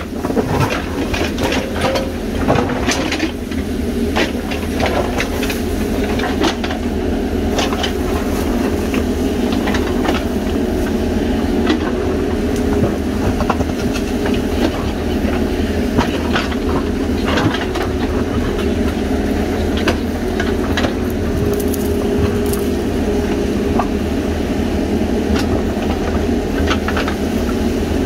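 JCB backhoe loader's diesel engine running steadily under load as the backhoe bucket digs into stony ground, with scattered knocks and scrapes of rock and dirt against the steel bucket.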